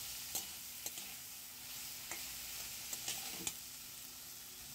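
Diced vegetables frying in oil in a kadai with a faint sizzle, stirred with a metal spatula that clicks and scrapes against the pan a few times.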